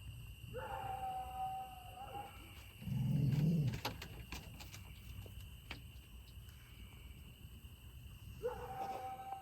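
An animal howling twice, long steady-pitched calls a few seconds apart, with a short loud low rumble between them. A steady high thin drone runs underneath.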